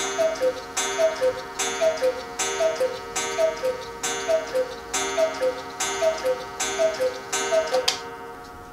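Mechanical Black Forest cuckoo clock calling the hour: ten two-note falling cuckoo calls from its bellows pipes, about one every 0.8 s, each starting with a sharp strike that rings on. Ten calls means it is striking ten o'clock.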